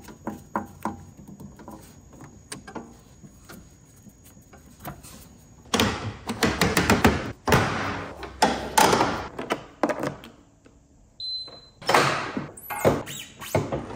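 Faint clicks of plugs being connected, then a run of loud plastic clacks and thuds as EGO battery packs are pushed down into the EGO Z6 mower's battery bays. A short high beep sounds near the end, followed by a few more knocks.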